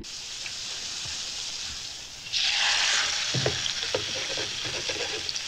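Hot fat sizzling in a frying pan on an electric hotplate. About two seconds in, the sizzle suddenly gets much louder as a steak goes into the pan, followed by a few light knocks.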